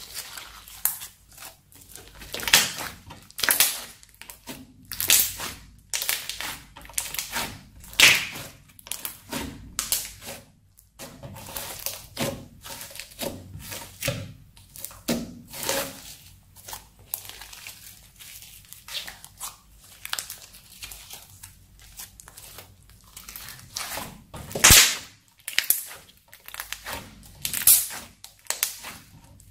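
Crunchy slime being stretched, folded and pressed by hand, giving irregular crackles, clicks and pops. A few are much sharper pops, the loudest about eight seconds in and again near twenty-five seconds.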